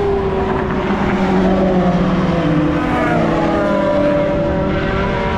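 Engines of several racing pickup trucks running hard on the circuit together, their pitch falling and rising as they brake and accelerate through the corner.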